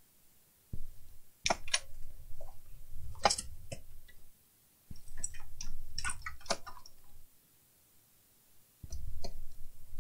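Clicks and knocks of a desktop PC power supply's sheet-metal case and circuit board being handled and shifted on a workbench, with low rubbing and bumping underneath. The sounds come in three bursts, about a second in, near the middle, and near the end, with quiet between.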